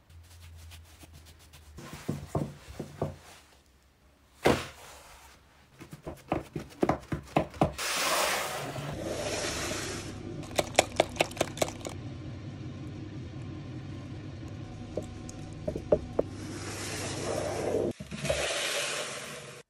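Kitchen handling sounds while working a semolina-dusted focaccia dough and its dark metal baking pan: clusters of short taps and knocks, stretches of scraping and rubbing on the stone counter, and a steady low hum through the second half.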